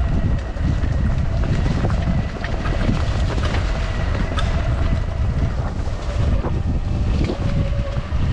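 Sur-Ron electric dirt bike ridden along a bumpy dirt trail: a thin electric-motor whine wavers with speed over heavy wind rumble on the microphone. Short knocks and rattles come from the bike going over bumps.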